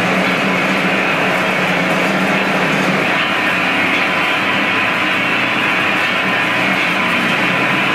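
Large rotating stainless steel roasting drum running: steady machinery noise with a hiss. The sound shifts in character about three seconds in.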